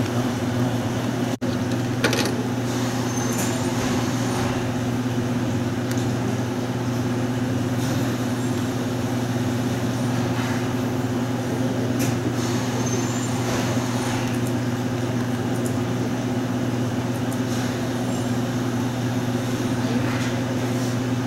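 Daewoo washing machine running: a steady low electrical hum with an even hiss over it and a few faint clicks.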